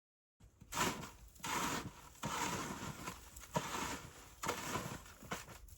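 Footsteps crunching in snow at a steady walking pace, roughly one step every three-quarters of a second, starting about half a second in.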